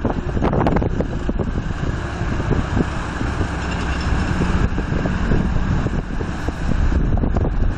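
Wind buffeting the microphone in irregular gusts over a low steady rumble, with a strong gust about half a second in.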